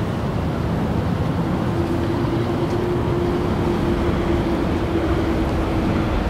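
Volvo S80's engine idling: a steady low rumble, with a steady hum that comes in about a second and a half in.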